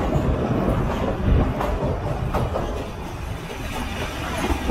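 Nilgiri Mountain Railway metre-gauge passenger coaches running along the track, heard from an open coach window. A steady rumble runs throughout, with a few sharp wheel clicks a second or two in.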